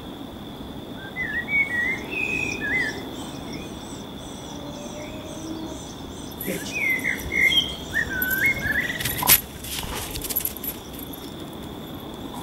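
Songbird singing in short, chirping phrases, once about a second in and again about six seconds in, over a steady high whine. A sharp click comes about nine seconds in.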